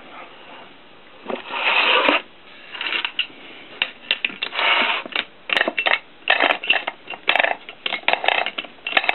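Irregular metal-on-metal scraping and clicking as the parts of a cast-iron and steel lathe chuck are handled and worked, with a run of quick clicks near the end.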